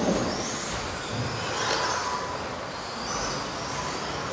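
Electric radio-controlled race trucks running laps: thin, high motor whines rising and falling as they speed up and slow down, over a steady hum of hall noise.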